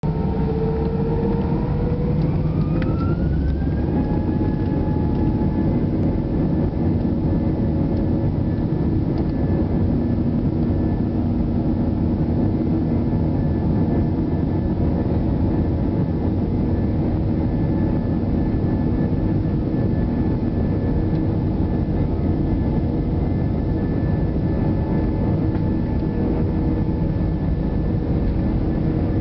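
Airbus A319 jet engines spooling up to takeoff thrust, heard from the cabin over the wing. A rising whine climbs over the first four seconds, then holds at a steady pitch over the constant engine and rolling noise of the takeoff run.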